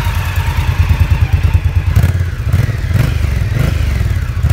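Indian Scout Sixty's liquid-cooled 999 cc V-twin engine idling steadily with an even, low pulsing beat.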